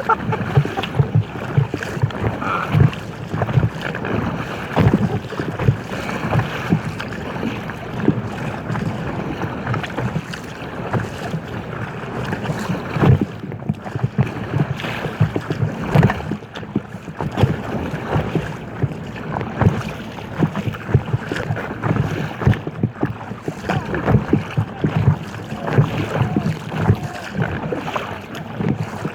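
Choppy water slapping and splashing against the hull of an inflatable kayak, with wind buffeting the microphone. The result is a constant run of irregular low knocks over a steady rushing noise.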